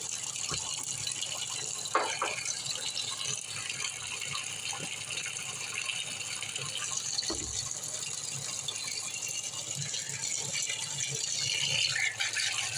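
Old portable washing machine running its rinse cycle with a steady mechanical rattle and occasional faint clicks.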